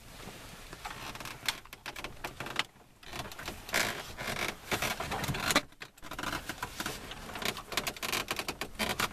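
Plastic dashboard trim around the radio of a 2000 Buick LeSabre being worked loose by hand: an irregular run of clicks, taps and rubbing of plastic on plastic.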